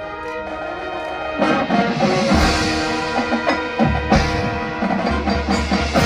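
Marching band playing a field show: sustained chords at first, then the fuller band comes in about a second and a half in, with heavy low drum hits from a little past two seconds.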